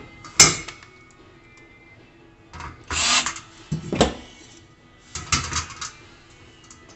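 Knocks and rattles of grill cart parts being handled and set down during assembly: a sharp knock about half a second in, a scraping rattle around three seconds, another knock at four, and a short cluster of rattles near six seconds, over steady background music.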